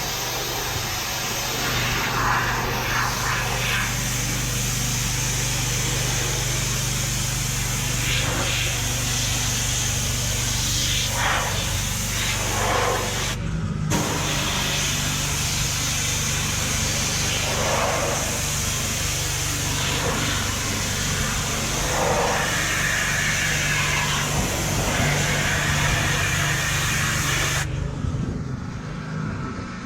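Pressure washer spraying water onto a pickup truck's body, a steady hiss over the engine's steady drone, with the water jet changing sound as it moves across the panels. The spray stops briefly about halfway through and again near the end while the engine keeps running.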